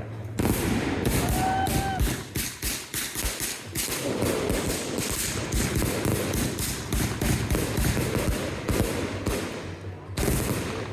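Fireworks or a string of firecrackers going off: a rapid, irregular crackle of many small sharp bangs, several a second, with a brief lull near the end before they start again.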